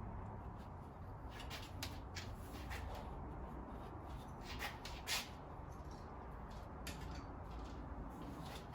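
Scattered clicks and rustles of hands handling a mountain-bike tyre and repair tools, over a steady low hum; the sharpest click comes about five seconds in.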